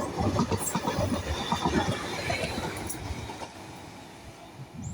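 Class 745 electric multiple unit running along the line, its wheels clicking and rumbling over the rails, the sound dying away over the last two seconds.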